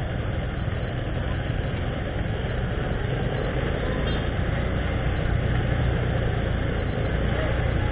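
Motorcycle engine running steadily at low speed amid the engines of other motorbikes in a busy street-market lane.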